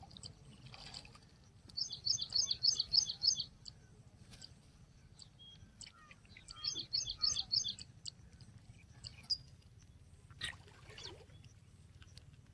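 A songbird singing two quick runs of repeated high notes, each lasting a second or two, a few seconds apart.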